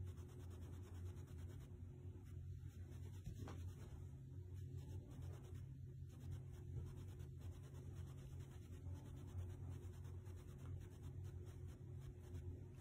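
Faint scratching and rustling of fabric as a dog and cat scuffle on a bed comforter, over a low steady hum.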